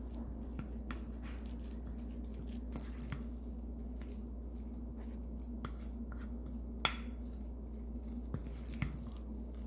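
Wooden spoon mashing cooked sweet potato in a ceramic bowl: soft squishing with scattered light clicks of the spoon against the bowl, one louder about two-thirds of the way through. A steady low hum runs underneath.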